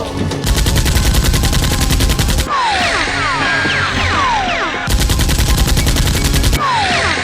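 Two bursts of rapid automatic gunfire, about two seconds each. Between and after them come repeated falling whistling tones.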